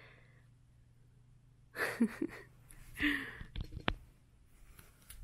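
Two short breathy vocal sounds, like soft sighs, about two and three seconds in, followed by a few soft thumps.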